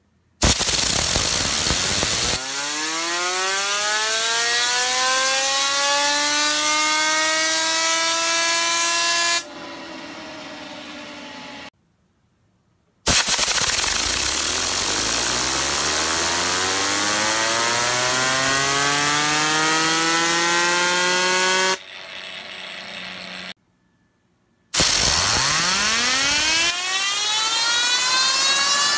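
Compressed air hissing from a blow gun into a clamped fidget spinner, three long blasts, each with a whirring tone that rises in pitch and then levels off as the spinner speeds up. After each blast the air stops and the spinner whirs on more quietly for a second or two before the sound cuts off.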